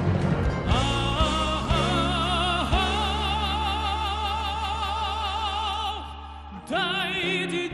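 Male tenor voice singing a Kazakh folk song, holding long high notes with a wide vibrato over an ensemble of traditional Kazakh plucked and bowed string instruments and a steady low drone. The music drops back briefly about six seconds in, then the voice returns, gliding up into the next phrase.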